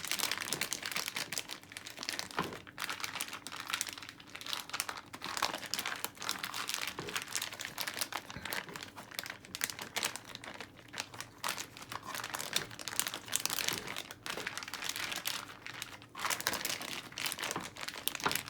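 Plastic Ziploc bag crinkling as it is shaken with raw beef and a liquid marinade inside, in runs of crackling with short pauses.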